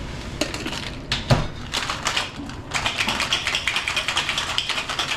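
A few knocks, then ice rattling hard in a cocktail shaker in a fast, even rhythm: the wet shake of a cocktail.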